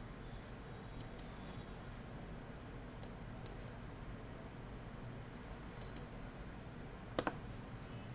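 Computer mouse clicks over a faint room hiss: a few light clicks in pairs, then two louder clicks in quick succession about seven seconds in.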